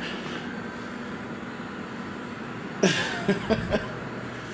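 Steady low hum of an indoor space, like building ventilation, with a brief wordless vocal sound from a man, a cough or mumble, about three seconds in.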